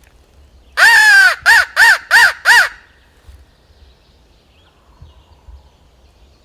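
Crow locator call blown hard at close range: one long caw followed by four quicker, shorter caws. It is sounded to make a gobbler shock-gobble and give away where he is.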